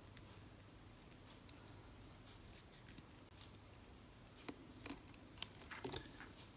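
Faint scattered clicks and light metallic ticks from hand-handled workshop tools: a thin piano wire held between the fingers and a metal vernier caliper picked up, with one sharper click about five and a half seconds in.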